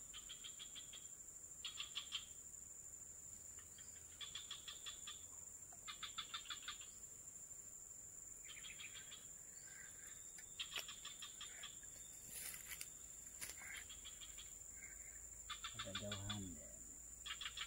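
Faint outdoor chorus of insects and birds: a steady high insect drone, with short rapid trills repeating every one to two seconds. A brief lower call comes near the end.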